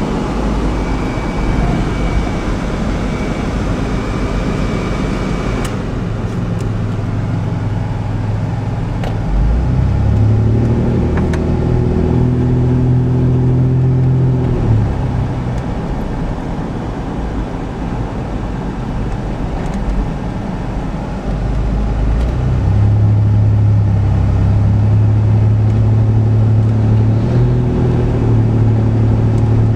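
Road vehicle engine running under a steady load on a long downhill, heard from inside a vehicle with road rumble. A deeper, even engine note swells up about nine seconds in, fades near the fifteen-second mark, and returns, louder, at about twenty-two seconds.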